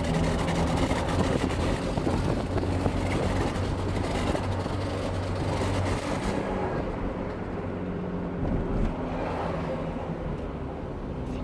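2008 Vauxhall Zafira B engine running steadily with a misfire. A high hiss over it fades away about six seconds in.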